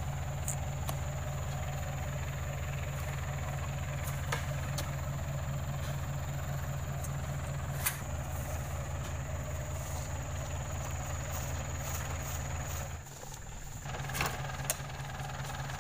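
Truck engine idling steadily, with a few sharp knocks from the loading work on oil palm fruit bunches. About 13 seconds in the engine sound cuts out briefly and comes back fainter.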